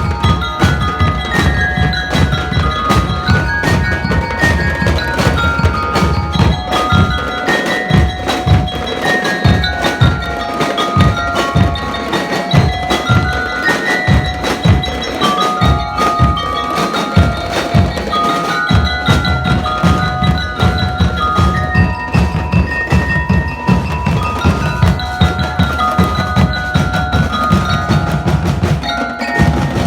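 Drum and lyre band playing: bell lyres ring out the melody over a steady beat of marching drums.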